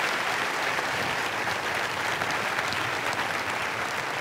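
An audience applauding steadily, many hands clapping at the close of a talk.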